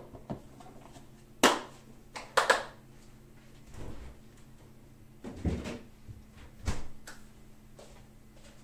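Kitchen handling sounds: a handful of separate knocks and clatters, the loudest a sharp one about a second and a half in and another about a second later, with softer thuds after, over a faint steady hum.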